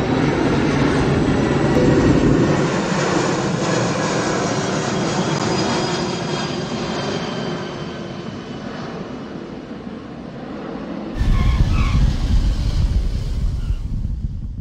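Jet airliner engine noise: a steady rushing sound with thin high whines that slowly fades, then a deep low rumble comes in suddenly about eleven seconds in.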